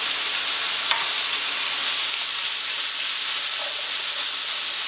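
Pork pieces and onions sizzling in oil in frying pans: a steady frying hiss, with a single light click about a second in.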